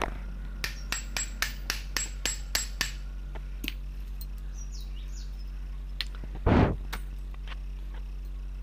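Motorcycle front fork tube being handled in assembly: a quick run of about nine sharp metallic knocks, roughly three a second, then a single heavier thud a few seconds later, over a steady low hum.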